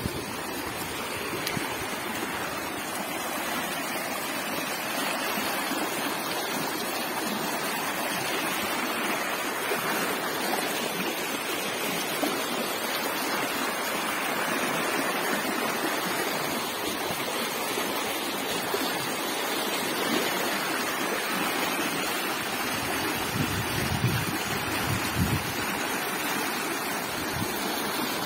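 Muddy floodwater from heavy rainfall rushing and churning along a flooded channel in a steady rush.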